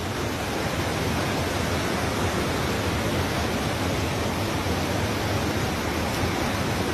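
Steady rushing of a flooded creek overflowing and running across a field, an even noise with no breaks.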